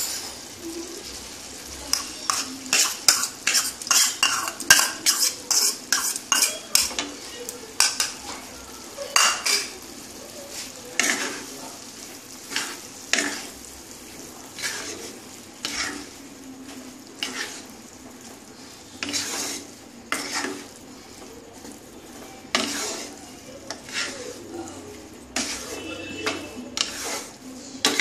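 A spatula scraping and knocking against a nonstick kadai as soaked sabudana is stirred into cooked moong dal and potatoes, with a low sizzle underneath. The stirring strokes come irregularly, several a second, starting about two seconds in.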